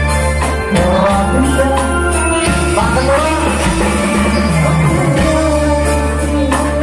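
Amplified live band music: an electronic keyboard plays over a steady bass line while a man sings into a microphone.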